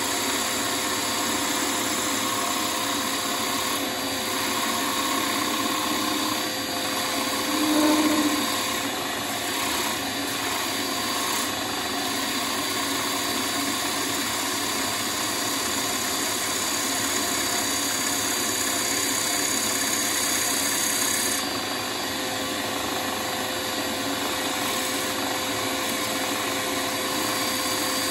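Wood lathe running steadily, with a turning tool working the spinning wooden bowl: an even hiss over a constant motor hum, briefly louder about eight seconds in.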